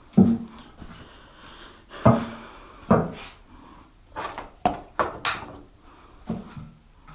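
Knocks and clatters of hard objects being picked up and set down on a table: about seven sharp hits, loudest near the start and at about two and three seconds in, with a quick cluster of smaller ones after four seconds.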